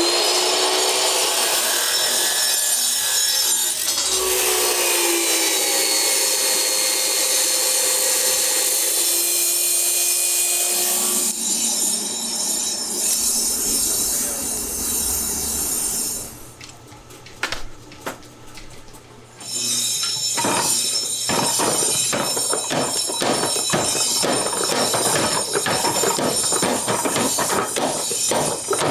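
An abrasive cut-off saw grinds through a steel bar for about the first ten seconds, its motor pitch wavering under load. A steadier rush and hum from the coal forge follows, then a short quieter gap. From about two-thirds of the way in, a mechanical power hammer strikes hot steel in rapid repeated blows.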